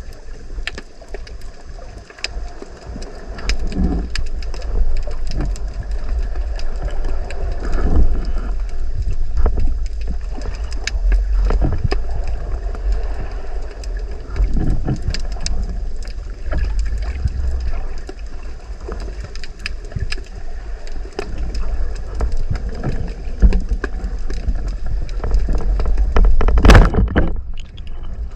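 Underwater sound from a spearfishing dive in shallow sea: a steady low rumble of water movement with scattered clicks and crackles, and a louder rushing whoosh near the end.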